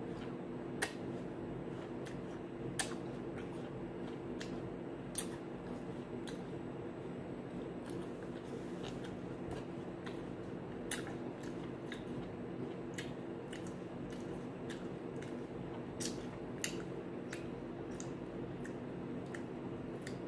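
Raw green apple being chewed: scattered sharp, crisp crunches every second or few, over a steady low hum.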